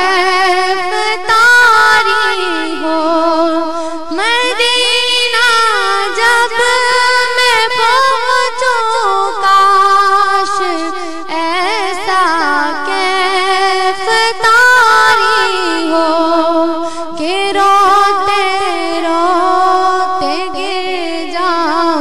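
A voice singing an Urdu naat, drawing the verse out in long, ornamented held notes with wavering and gliding pitch, with no beat or percussion.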